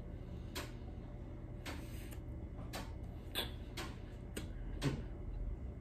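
Dry corn starch being chewed, giving a series of crisp clicks and squeaks about every half second.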